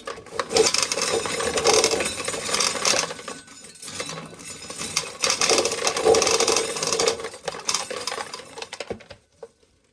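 Dried corn being shelled, the kernels coming off the cob in a dense clicking rattle, in uneven spells that stop about nine seconds in.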